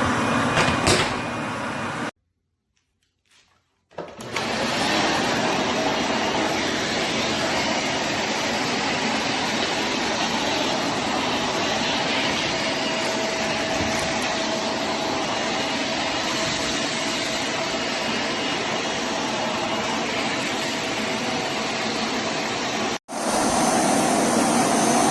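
Bissell Zing bagless canister vacuum cleaner running steadily. It drops to silence for about two seconds about two seconds in, then runs on, with a very brief cut near the end.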